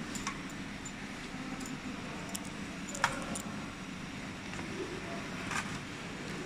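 Scattered metallic clicks and clinks as metal circular multi-pin cable connectors and cables are handled on a steel workbench, the sharpest click about three seconds in, over a steady low hum.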